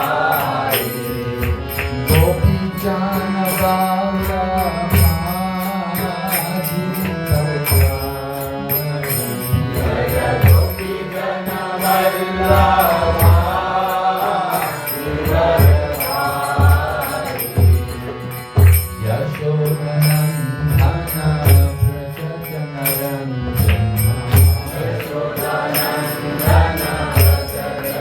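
Devotional kirtan: a voice sings a bhajan melody over a steady beat of low drum strokes and a continual bright clash of hand cymbals.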